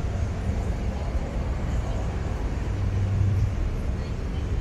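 Low, steady rumble of road traffic, swelling briefly a little after three seconds in.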